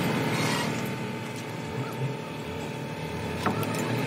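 A few sharp metallic clicks and taps as a screwdriver is worked against a truck's drum-brake anchor bracket, over a steady mechanical hum.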